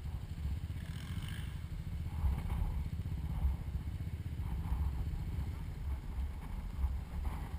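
ATV engines rumbling low and steadily, with short swells in engine pitch about every two seconds.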